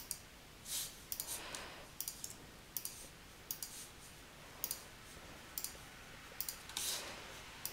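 Faint computer mouse clicking: about a dozen sharp clicks, single and in quick pairs like double-clicks, roughly one a second.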